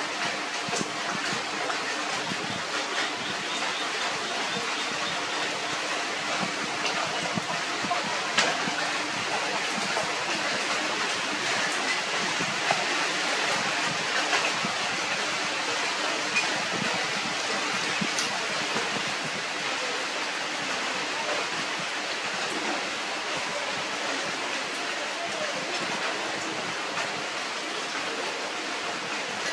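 Steady rushing of water, an even hiss with no rhythm, with a few faint ticks and knocks now and then.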